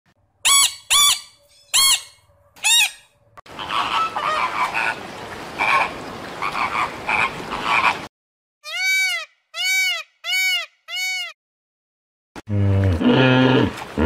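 Scarlet macaws squawking, four harsh calls in a row. Then a flock of birds calls over a steady hiss, five short identical high calls follow, and deep grunting calls begin near the end, plausibly a hippo.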